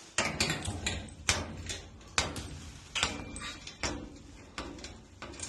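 Irregular metallic clinks and knocks of tools and spring hardware being handled while a new garage door torsion spring is fitted, about a dozen sharp strikes.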